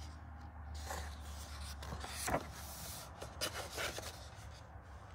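Colouring book pages turned by hand: a few short paper rustles and flicks, the loudest about two seconds in, over a low steady hum.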